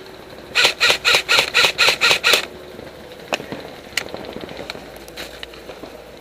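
Airsoft rifle firing a quick string of eight shots, about four a second, followed by a few fainter single cracks of shots further off.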